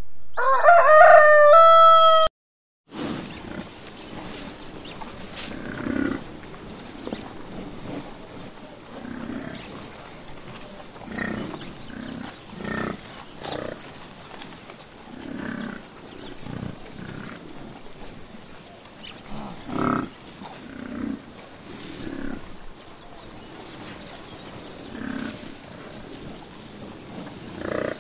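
A rooster crowing once, a loud cock-a-doodle-doo over about the first two seconds that cuts off sharply. After a short gap comes a long series of much quieter, short, low animal calls, one every second or two.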